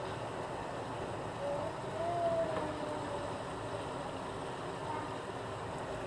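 Blackspotted estuary cod fillet frying in a pan, with a steady, even sizzle.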